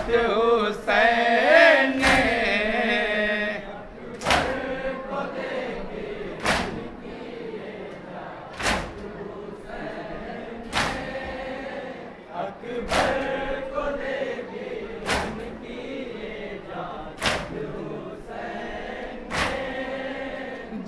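A group of male mourners chanting a noha refrain. From about four seconds in, a sharp slap of hands beating chests in unison (matam) comes about every two seconds, keeping time under the quieter chanting.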